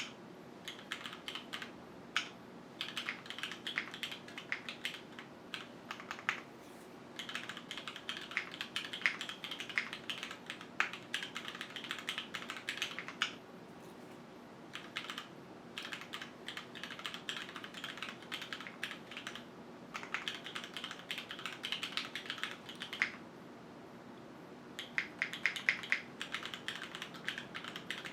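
Mechanical keyboard typing in bursts with short pauses. The board is a QwertyKeys Neo 65, gasket-mounted with no foam, with Cherry HyperGlide Black linear switches in an aluminium plate.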